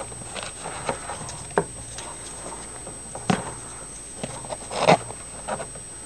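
Irregular light clicks, taps and scrapes of plastic motorcycle fairing pieces being handled on a workbench, with two louder knocks about three and five seconds in.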